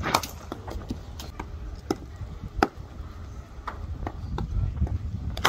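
Cricket net practice: several sharp knocks of a cricket ball off bat and pitch at irregular intervals, loudest about two and a half seconds in and again right at the end, over a low rumble.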